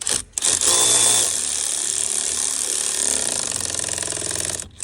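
Power tool running for about four and a half seconds, tightening the nut on the battery's positive terminal clamp, then stopping suddenly.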